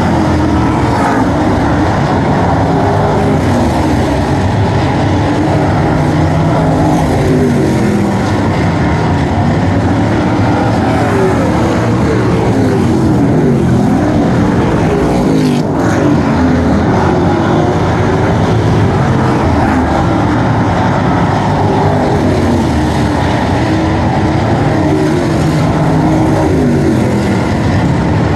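A field of street stock dirt-track race cars running at racing speed. Many engines overlap, their pitch rising and falling again and again as the cars accelerate and lift around the oval.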